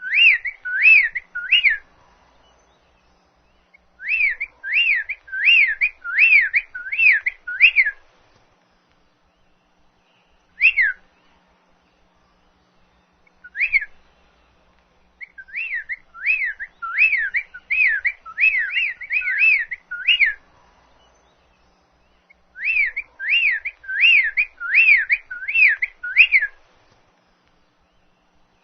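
A bird singing clear whistled notes, each a quick sweep in pitch, repeated about twice a second. The notes come in bouts of three to ten, with single notes and short pauses between bouts.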